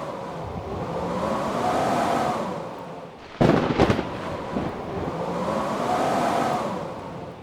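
Blizzard wind gusting twice, each gust swelling and fading with a rising-then-falling howl. A sharp, loud knock or crack comes a little before halfway.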